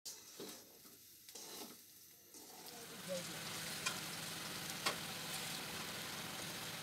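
Beef and potato curry sizzling and bubbling in an aluminium pot as a metal spoon stirs it, with two sharp clinks of the spoon against the pot. The steady sizzle comes in about three seconds in.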